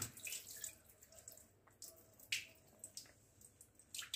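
Soaked sago pearls sliding and being scraped from a bowl into a steel mesh strainer, with faint water drips and soft wet patters as they drain. A brief patter comes at the start, then sparse single drips, one sharper about two seconds in and another near the end.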